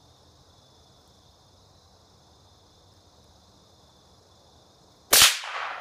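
A Ruger American .22 LR bolt-action rifle fired once, a sharp crack about five seconds in that dies away over about a second. Before it, only a steady high chirring of insects.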